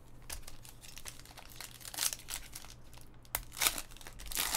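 Foil card-pack wrapper crinkling in several short rustles as hands work it open, the loudest about three and a half seconds in.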